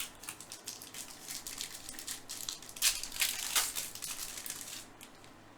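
Baseball trading cards being handled and flipped through: a run of short papery rustles and slides, with a couple of louder swishes about three seconds in.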